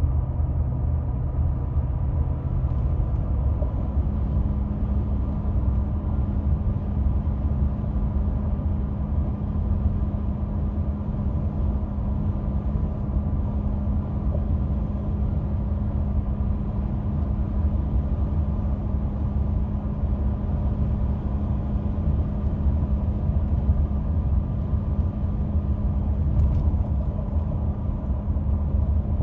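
Cabin noise of a 2016 Ford F-150's 5.0 V8 pickup driving at highway speed: steady road and drivetrain rumble, with a steady hum that comes in about four seconds in and holds. The hum is a strange, intermittent noise of unknown cause that appears around 60 mph under throttle and goes away when coasting.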